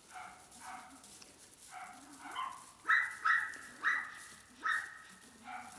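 Dog barking in a series of short barks, louder and closer together from about three seconds in.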